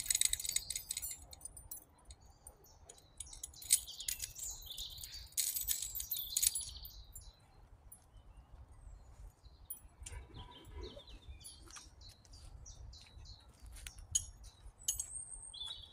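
Songbirds chirping and singing, busiest in the first seven seconds and sparser after, with a few small clicks.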